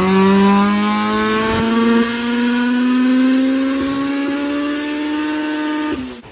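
Turbocharged Honda B16 four-cylinder at full throttle on a chassis dyno, exhausting through a full 3-inch exhaust with a Vibrant muffler. Its note climbs steadily in pitch as the revs rise through the pull and cuts off abruptly about six seconds in.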